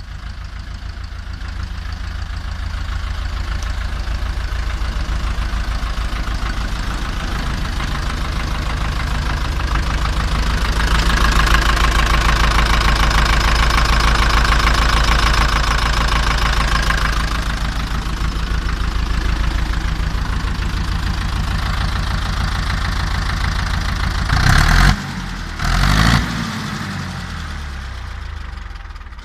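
Ursus C-360 tractor's four-cylinder diesel engine, a freshly overhauled replacement, idling steadily with its low knocking beat. Near the end it is revved briefly twice.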